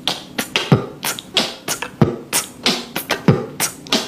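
A man beatboxing: a quick, even rhythm of mouth-made kick-drum thumps and hi-hat-like hisses, about three to four sounds a second.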